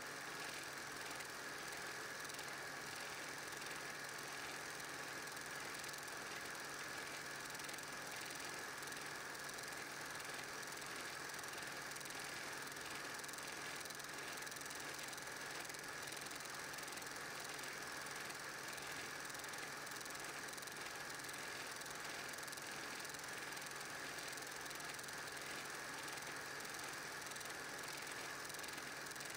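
8mm film projector running steadily: a constant mechanical whir with a low hum.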